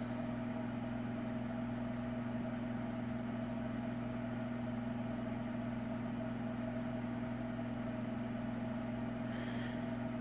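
A steady mechanical hum from a small motor or appliance, a few low held tones over a faint hiss, unchanging throughout.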